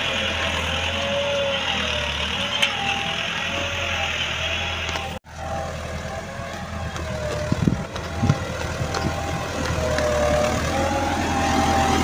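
Massey Ferguson 385 tractor's diesel engine running steadily under load, pulling a spring-tine cultivator through the soil, with a wavering higher tone over the low hum. The sound drops out for an instant about five seconds in, and a few knocks come a little past the middle.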